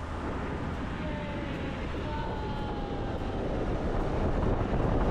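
Van driving along a highway: steady engine and road noise, getting louder toward the end.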